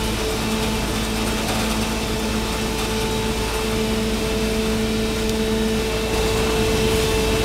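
Charcoal briquette production line machinery running: a steady motor hum with two held tones over a noisy mechanical drone. The lower tone fades about six seconds in, and the sound grows a little louder near the end.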